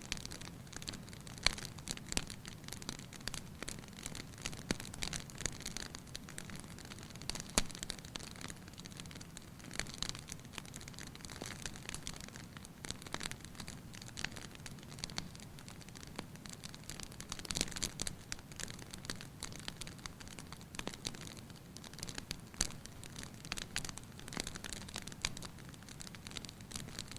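Wood fire in a fireplace crackling, with irregular sharp pops and snaps over a steady hiss of burning.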